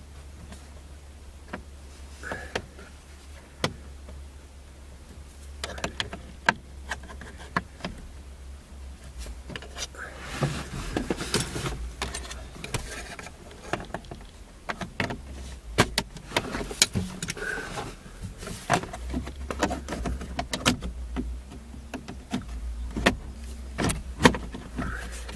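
Plastic lower steering column cover of a Ford Focus being unclipped and worked off the column: irregular clicks, snaps and rattles as its side tabs are pushed in, sparse at first and much busier about ten seconds in.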